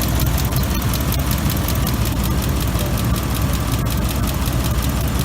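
2005 Ford F-150 engine idling steadily, with the air conditioning running on a high fan setting while the system is being recharged.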